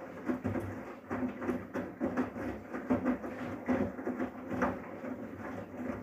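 Samsung WW80CGC04DAELE front-loading washing machine's drum tumbling wet laundry in the wash phase of a 40°C colours programme. Water sloshes and clothes flop over in a rough rhythm of about twice a second, over a steady motor hum.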